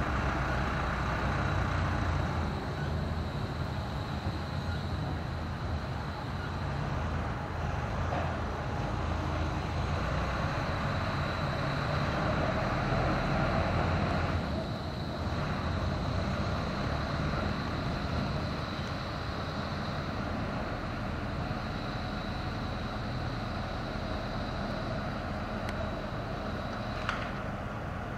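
Steady low rumble of heavy vehicle machinery with a faint constant high whine, while a new Alstom (Bombardier) E2 tram moves slowly off along the tram tracks; a small click sounds near the end.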